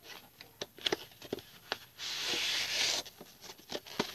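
Cardboard light-bulb packaging being handled: scattered light taps and clicks, with a one-second scraping rustle about two seconds in as cardboard slides against cardboard.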